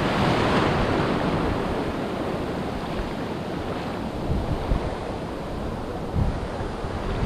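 Rough sea surf breaking steadily on a sandy beach, the waves running high, with a few brief gusts of wind rumbling on the microphone.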